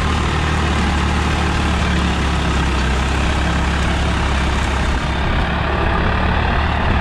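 Swaraj 744 FE tractor's three-cylinder diesel engine running steadily under load in third gear, pulling a seven-tine cultivator through the soil.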